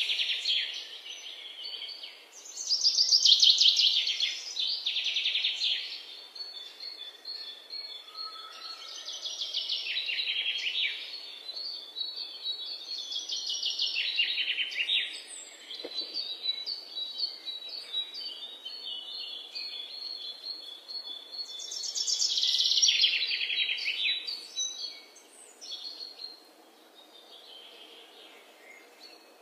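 Birdsong: high, rapid chirping trills in phrases of a second or two, one after another, loudest about three seconds in and again past twenty seconds, fading near the end.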